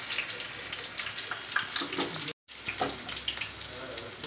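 Batter-coated pomfret deep-frying in hot oil: a steady sizzle dotted with crackles and pops. The sound cuts out abruptly for a moment a little past two seconds in.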